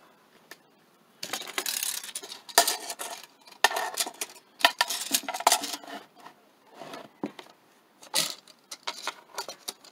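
Craftsman steel tape measure being handled: the blade pulled out and laid across a wooden board, with rustling and sharp metallic clicks in a run of bursts for several seconds, then a few lighter clicks.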